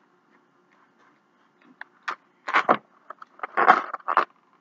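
Styrofoam takeout container being handled, giving a few short squeaky scrapes and rustles after a second or so of quiet.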